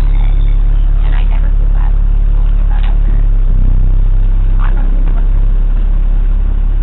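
School bus engine and road noise heard from inside the passenger cabin: a loud, steady low drone.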